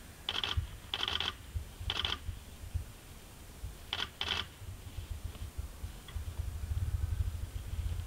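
Five short, buzzing mechanical bursts, three in the first two seconds and two close together about four seconds in, which the uploader takes for interference noise from the Canon camera itself. A low rumble runs underneath and is heaviest near the end.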